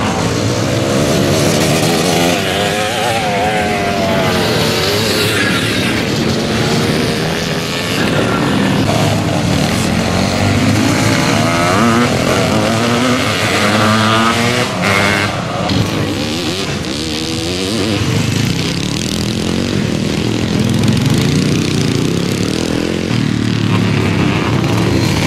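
Several vintage motocross bikes racing, their engines revving up and down as they accelerate out of corners and pass one another, with two or more engines often heard at once.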